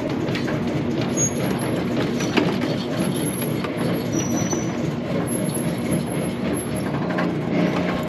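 Massey Ferguson 2100/2200-series square baler knotter working through a knot-tying cycle: a steady mechanical clatter of many small clicks and rattles over a low, even hum.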